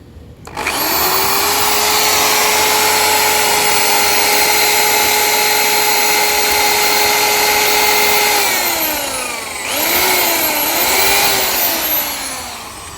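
Electric power tool motor spinning up to a steady high whine and running for about eight seconds, then winding down. It starts again for a shorter run of about two seconds, with a brief dip in pitch, before winding down once more.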